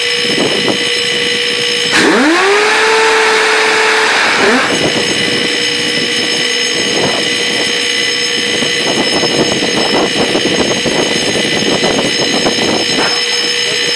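Phalanx CIWS 20 mm M61 Vulcan six-barrel rotary cannon cycling in test mode without live rounds. About two seconds in, its whine rises quickly to a steady pitch over a loud rush, holds for about two seconds, then cuts off. A steady hum and light clatter run underneath.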